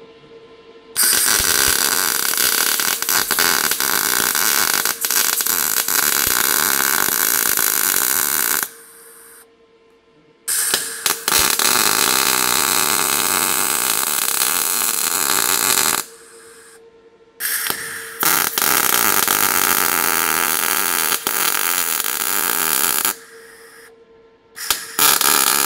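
MIG welder arc on 0.8 mm wire sizzling and crackling as it plug-welds a sheet-metal repair patch through three drilled-out spot-weld holes. There are three runs of about six seconds each with short pauses between them, then a brief fourth burst near the end.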